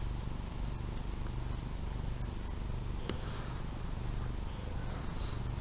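A cat purring steadily, with a sharp click about three seconds in and a few light rustles of the doll being handled.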